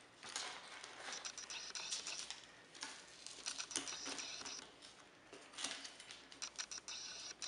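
Light clicks and scratchy rustles of small metal parts and old wires being handled as the E-unit reversing unit is worked loose from the frame of a Lionel #8E toy-train motor.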